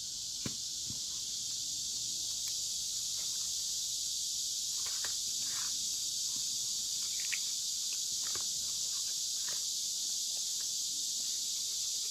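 A steady high-pitched hiss, with a few faint rustles and soft clicks as the folded-paper crown and a plastic bottle of liquid glue are handled.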